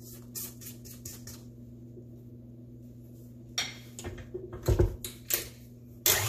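Light clicks and knocks of a wire whisk and the tilt-head of a stand mixer against its stainless-steel bowl, with one heavier thump as the head is lowered; near the end the mixer's motor starts running with a loud steady noise.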